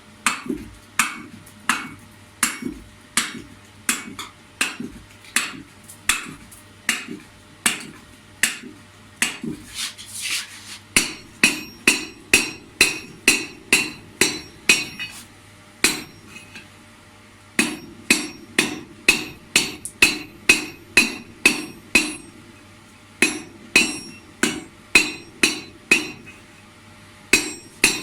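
Hand hammer striking hot steel pipe, flaring its end over a form to make a rake-handle socket: sharp ringing blows about two a second, with a few short pauses between runs. A steady low hum runs underneath.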